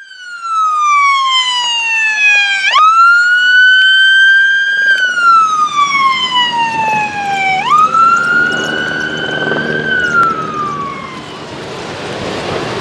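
Whelen Epsilon electronic siren on a lifeguard emergency vehicle responding to a call. Its pitch slides slowly down, jumps sharply back up and holds, twice over, then falls away and fades near the end.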